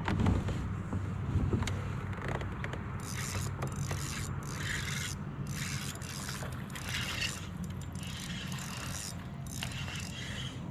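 Steady low mechanical hum, with a few knocks in the first couple of seconds, then repeated bursts of whirring and scraping.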